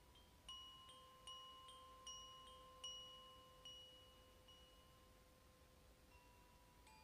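Koshi wind chime ringing softly: its clapper strikes the tuned rods in a run of about ten clear, bright notes a little under half a second apart, then the notes fade out over the last couple of seconds.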